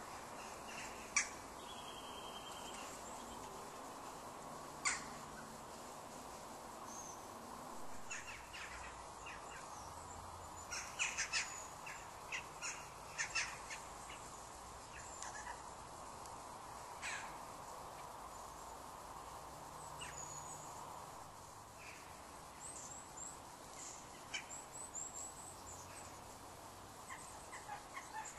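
Outdoor ambience with birds calling: short, scattered calls, several in quick succession around the middle and more near the end, over steady background noise.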